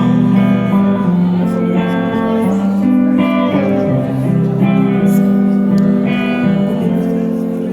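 Live band playing the instrumental lead-in to a song, with guitar over sustained chords that change about once a second and no singing yet.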